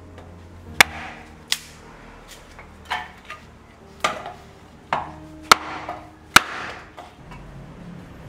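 Hatchet chopping and splitting kindling on a wooden block: about seven sharp chops, roughly one a second, ending a little after six seconds in.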